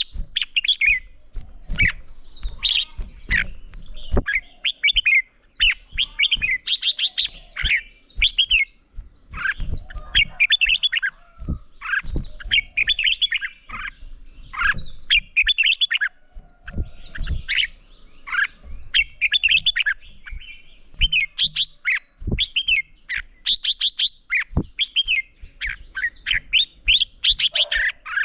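Red-whiskered bulbul singing: short, quick warbled phrases repeated every second or so, with scattered soft knocks underneath.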